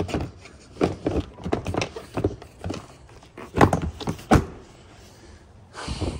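A run of sharp knocks and clunks, the loudest two about three and a half and four and a half seconds in, then a short rushing noise just before the end.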